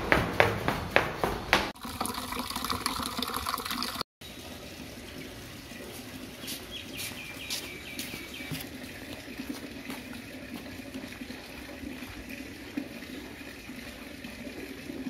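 Sandal footsteps slapping down stone stairs, about three steps a second, then water running from a tap into a plastic bucket for about two seconds. After a cut, a steady outdoor background with a faint high tone.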